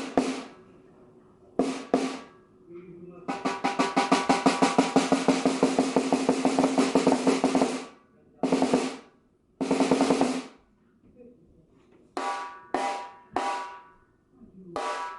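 Handmade wooden snare drum being played: a few single strokes, then a steady roll lasting about four and a half seconds, two longer strokes, and four evenly spaced hits near the end. Each stroke carries a clear ringing tone from the drum.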